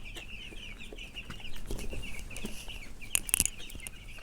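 Flock of broiler chickens in a coop, cheeping continuously with many overlapping high peeps. A few sharp knocks sound about three seconds in.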